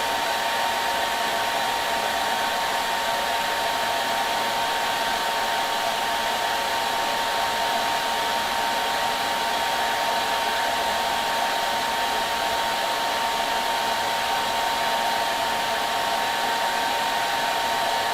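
Hair dryer running steadily, a constant airy whoosh with a faint steady whine, played as white noise for soothing a baby to sleep.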